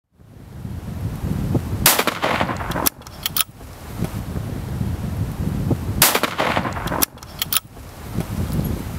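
Two rifle shots about four seconds apart, each followed a second or so later by a couple of sharp clicks, over a steady low rumble.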